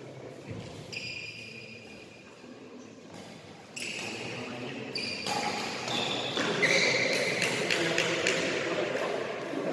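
Badminton rally: sharp racket strikes on the shuttlecock and short squeaks of sports shoes on the court floor. Quiet at first, picking up about four seconds in as play resumes.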